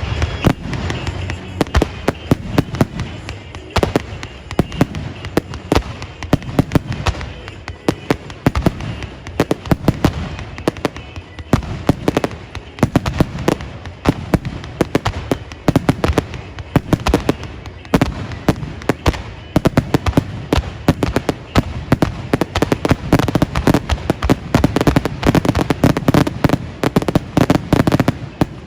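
A dense, continuous barrage of fireworks: many overlapping bangs and crackles in rapid succession, ending abruptly right at the end.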